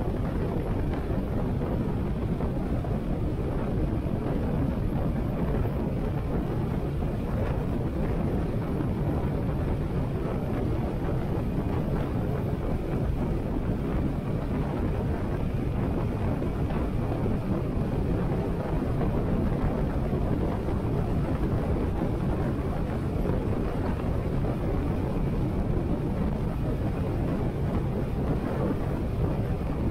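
Steady wind rush over a helmet-mounted action camera's microphone, with a Harley-Davidson Sportster 883's air-cooled V-twin engine running underneath at a steady cruise.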